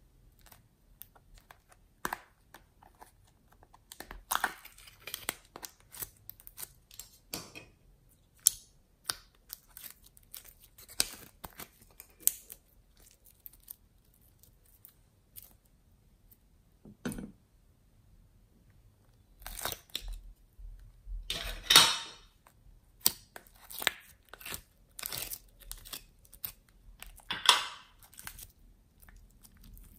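Hands squeezing and stretching soft metallic slime: sticky squelching with crackles and small pops of trapped air, coming in irregular bursts, the loudest a little past two-thirds of the way through.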